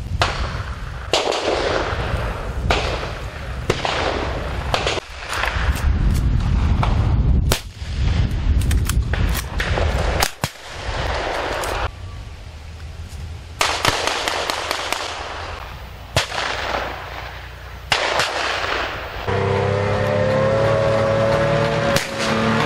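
Blank gunfire and explosive bangs of a mock battle: sharp shots at irregular intervals, some in quick runs, over a low rumble. Near the end the firing gives way to a steady drone with several pitches.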